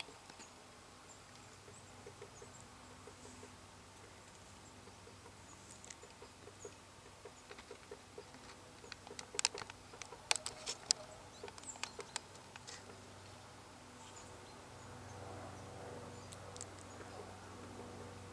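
Great spotted woodpecker pecking at a pine trunk: irregular single taps of its bill on the wood, not a drumming roll. The taps are faint and spaced at first, with a burst of louder, sharper knocks around the middle.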